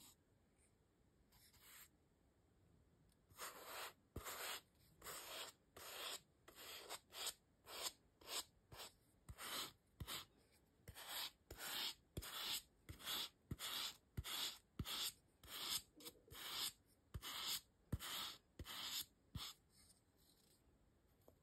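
Brush strokes of gold paint on a styrofoam star: short, dry, scratchy strokes, about two a second. They start a few seconds in and stop near the end.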